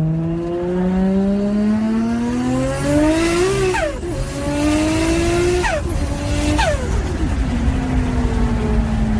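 A turbocharged car accelerating hard through the gears. The engine's pitch climbs, then drops sharply at three quick shifts, about four, six and nearly seven seconds in, with a rush of hiss around the first two shifts. After that it runs at a steadier, slowly falling pitch.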